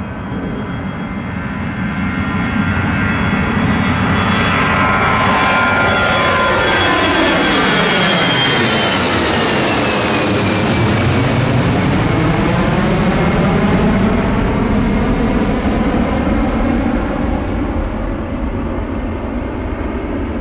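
Airbus A319 jet departing under takeoff power and passing close by. Its engine whine holds steady, then drops in pitch as the jet goes past about halfway through; the noise is loudest through the middle and eases off near the end.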